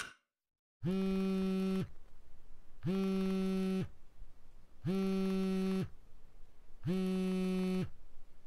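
Phone buzzing with an incoming call: four steady one-second buzzes, about two seconds apart.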